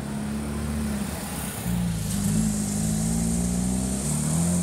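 Porsche 911 GT3's naturally aspirated flat-six engine driving past at low revs, getting louder and its note rising slightly as the car pulls away about two seconds in.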